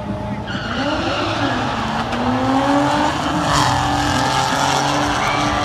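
Drag racing car accelerating hard down the strip, the engine note climbing and then dropping at a gear change about three and a half seconds in.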